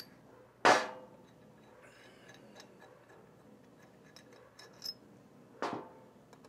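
Cylinder-head bolts being spun out by hand from a Carrier 06E refrigeration compressor, with faint ticking of the threads and two sharp metallic clinks, about a second in and near the end.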